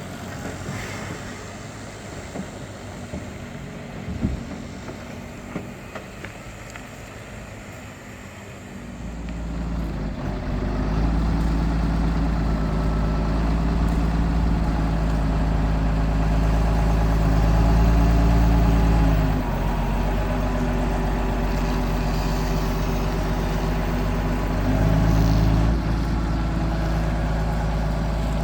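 Heavy diesel engine running, swelling to a loud, steady rumble about nine seconds in, easing off once in the middle and briefly revving up near the end. A few sharp metallic knocks are heard before the engine grows loud.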